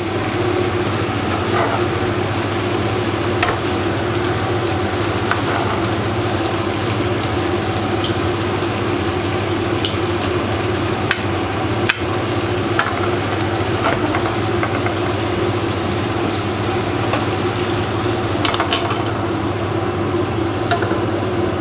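Stir fry sizzling steadily in a wok on the hob over a continuous low hum, with occasional light clicks of metal tongs against the wok and plate as food is lifted out.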